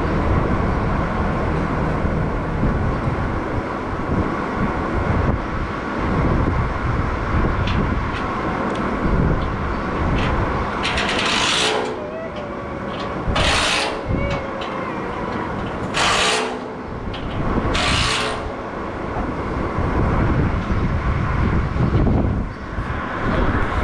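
Steady low machine drone, with four short, loud hissing bursts in the second half.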